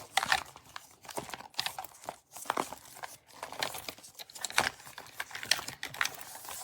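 Handling and stuffing items into a small portable lock box: irregular rustling and crinkling with scattered light knocks and clicks.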